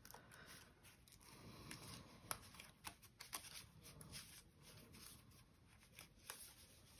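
Faint paper sounds: a string of small sharp ticks and soft rustling as a delicate laser-cut paper piece is pressed out of its sheet by hand. Otherwise near silence.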